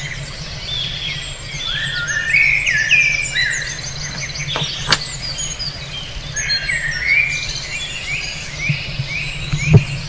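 A chorus of small birds chirping and twittering, many short repeated notes overlapping, over a low steady hum. A single sharp click about five seconds in.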